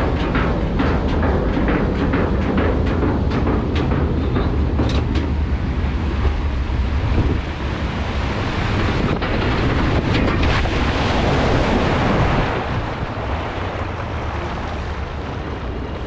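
Log-flume boat ride, heard from on board. The lift hill clicks rapidly for about the first five seconds. Around ten seconds in comes a loud rush of wind and water as the boat goes down the drop and splashes. It then glides through the water channel with water rushing and wind on the microphone.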